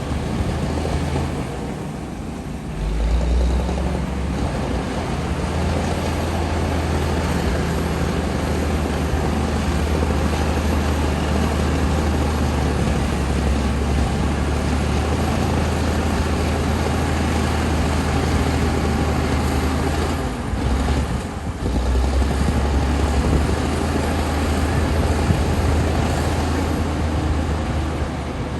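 Komatsu D60P bulldozer's diesel engine running steadily under load, its low note dropping off briefly about two seconds in and again about twenty seconds in.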